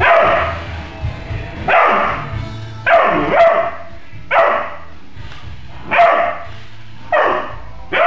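Doberman puppy barking at a flying micro RC helicopter: about seven short barks, roughly a second apart, over background music.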